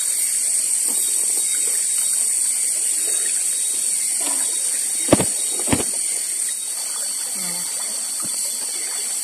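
Steady high-pitched outdoor background hiss, with two sharp clicks about half a second apart a little past the middle.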